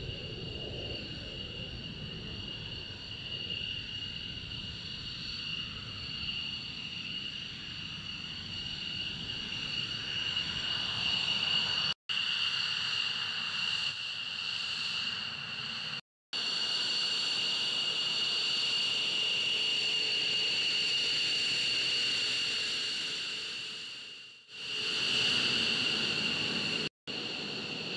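F-15C Eagle twin-engine fighter jets taxiing at low power: a steady high-pitched turbine whine over a rushing jet noise. The sound cuts out abruptly a few times and fades down and back up once near the end.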